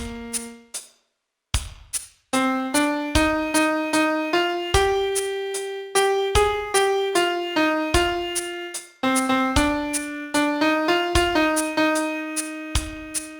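Solo piano playing a slow song melody one note at a time, each note struck and left to ring, with a brief pause about a second in.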